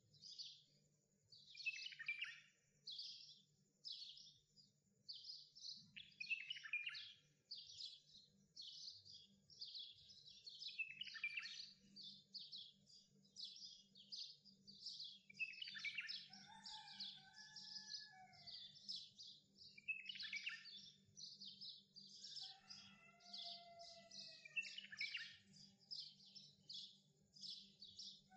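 Birds chirping: a steady stream of quick, high chirps, with a few lower sliding whistles around the middle and again near the end. A faint steady hum sits underneath.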